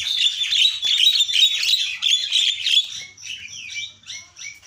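Javan myna singing: a fast, dense run of chattering chirps and whistled notes that thins out after about three seconds into spaced, repeated high peeps.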